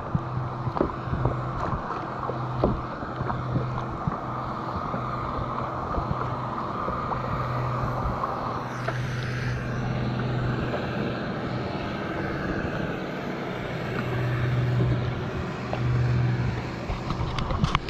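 Kayak paddle strokes dipping and splashing with water washing against a plastic sit-on-top kayak's hull, heard over steady wind and water noise on a GoPro microphone, with scattered small splashes and drips and a low hum that comes and goes.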